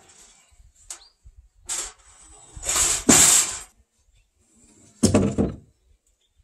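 Wooden knocks and scraping clatters as timber is handled on a roof frame. The loudest is a long scrape about three seconds in, followed by a rattling knock about five seconds in.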